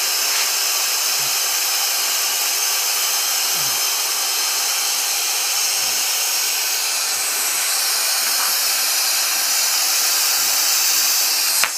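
Steady rushing hiss of air being blown into a dead deer's lungs to reinflate them.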